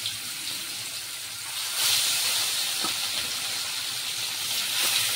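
Turmeric-rubbed fish pieces sizzling in hot oil in a kadai, a steady hiss that grows louder about two seconds in as a second piece goes into the oil.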